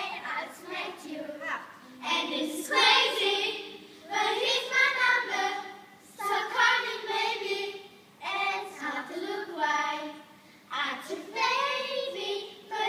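A group of young girls singing together in phrases about two seconds long, with short breaks between them.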